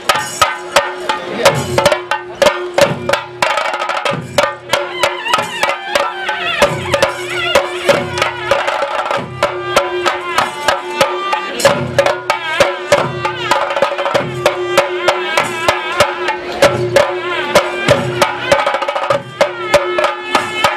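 Chenda drums beaten with sticks in a fast, dense rhythm, with a wavering pitched melody and a steady held tone above them: the percussion ensemble that accompanies a theyyam dance.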